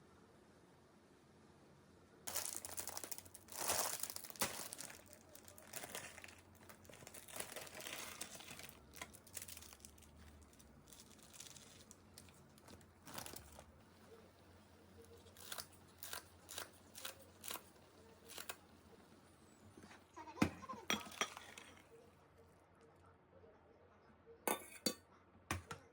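Rustling and crinkling, as of packaging being handled, for about twelve seconds, then scattered light clinks and knocks.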